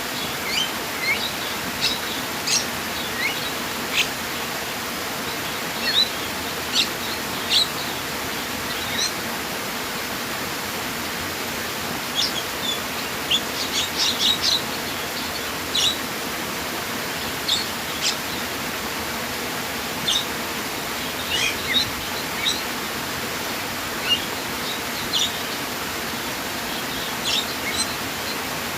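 Birds chirping in short, scattered calls over a steady rush of flowing water, the calls pausing for a few seconds near the middle.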